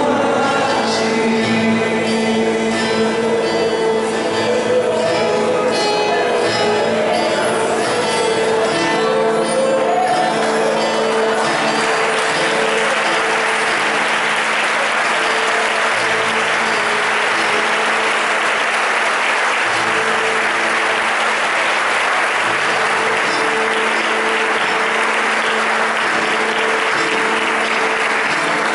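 Live worship band with singing and acoustic guitar; about eleven seconds in the song gives way to a sustained chord, and the congregation applauds steadily over it.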